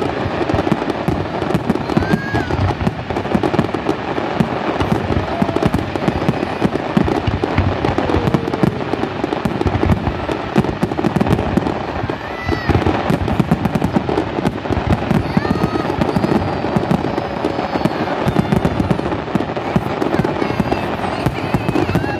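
Fireworks display: a dense, continuous barrage of bangs and crackling.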